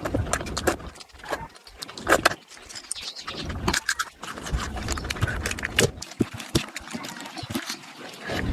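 Close-miked eating sounds: chewing and wet mouth smacks, with many quick, irregular clicks and crackles.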